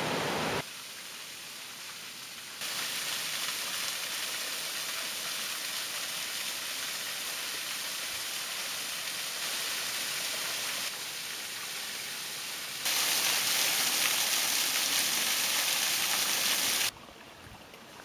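Water pouring over a low dam spillway and small waterfalls, a steady rushing noise. It jumps abruptly louder or quieter several times, loudest near the end.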